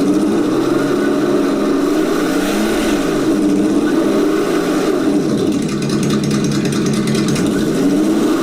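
Electronic engine-sound box in a 1/5-scale RC car playing a simulated car engine note through its speaker, revving up and dropping back a few times as the throttle is worked.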